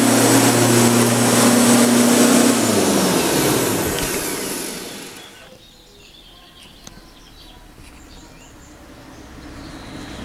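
Gardena PowerMax 32E corded electric lawn mower running steadily, then winding down about three seconds in, its motor and blade whine sliding down in pitch and dying away over the next two seconds or so.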